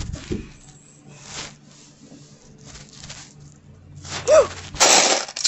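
Rustling of plush toys and bedding being handled close to a phone's microphone, with a brief squeak about four seconds in and a loud burst of handling rustle near the end.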